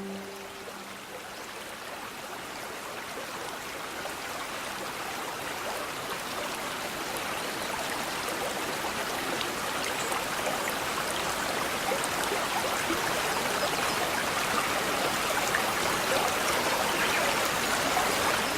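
Small stream babbling, a steady rush of running water that grows gradually louder, just as the last orchestral chord dies away at the very start.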